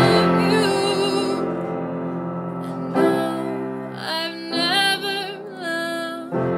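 A song with piano chords and a singing voice: chords are struck about every one to three seconds, and between them the singer holds long notes with vibrato. The recording was made on an iPhone.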